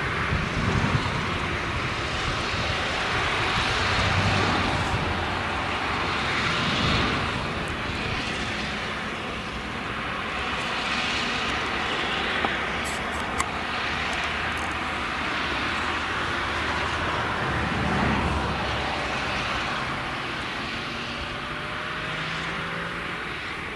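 Claas Jaguar 970 self-propelled forage harvester chopping sorghum: engine and chopper running at work with a steady rushing noise that swells and eases every few seconds, along with the tractor hauling the trailer beside it. Two brief clicks a little past halfway.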